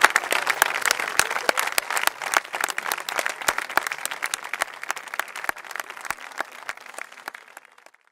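Theatre audience applauding, a dense patter of hand claps that thins and fades away, stopping shortly before the end.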